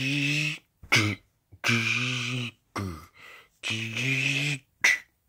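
A person's voice making three drawn-out, low-pitched cries, each about a second long, with short sharp vocal noises between them. It is a play voice for stuffed toys shouting as they are grabbed.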